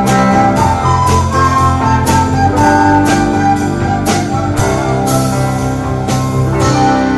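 Live band music: a children's recorder ensemble playing a melody over drum kit, keyboard and guitar, with drum and cymbal strokes about twice a second that stop shortly before the end.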